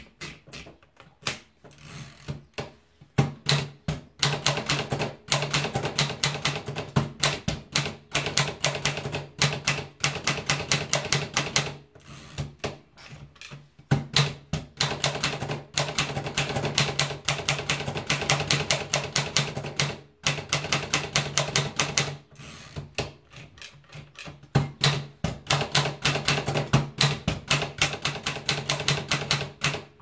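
Urania manual typewriter: a few soft clicks as the platen knob winds the paper in, then rapid, loud keystrokes in long runs, broken by short pauses.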